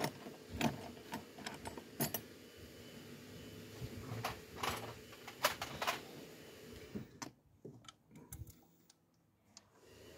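Irregular metallic clicks and clinks of hand tools and parts being handled in a car's engine bay, going quiet for a couple of seconds near the end.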